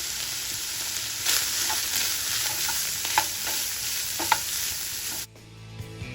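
Ground beef sizzling hard in a hot pan as taco seasoning and water are stirred in, with the spoon clinking against the pan a few times. The sizzle cuts off suddenly about five seconds in.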